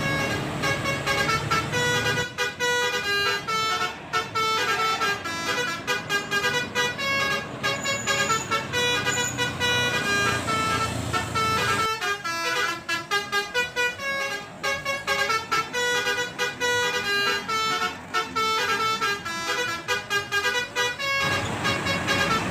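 A bus's telolet basuri multi-tone musical air horn playing a fast melody of short notes. It breaks off partway through and starts a new tune. Low engine and traffic rumble comes in at the start and again near the end.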